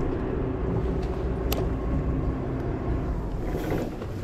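Boat engine running with a steady low drone, with one sharp click about a second and a half in; the drone eases off near the end.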